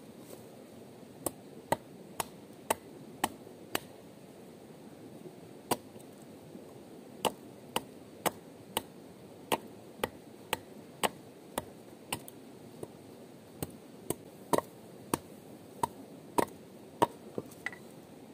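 Sharp chopping knocks on wood, about two a second in runs broken by short pauses.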